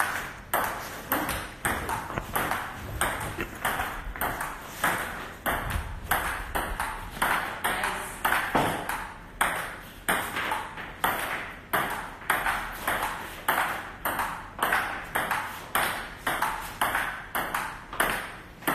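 Table tennis ball in a steady, unbroken rally, clicking off the paddles and the table about two to three times a second.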